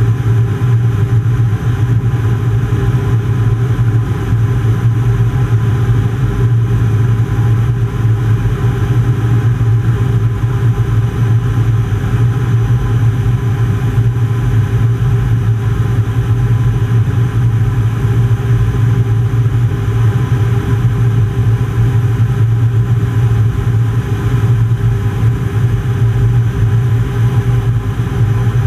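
Loud, steady cockpit noise of an Aero L-29 Delfín jet trainer climbing out after take-off: its Motorlet M-701 turbojet and rushing air, under a strong, even low hum.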